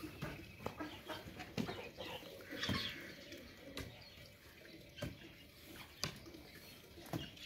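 A hoe chopping into and turning a heap of dry chopped wheat straw and earth, a dull thud with a straw rustle about once a second, as straw is mixed into soil for mud plaster.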